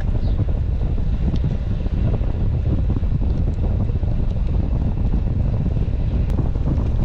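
Wind buffeting the microphone of a bicycle riding at speed, a steady loud rumble.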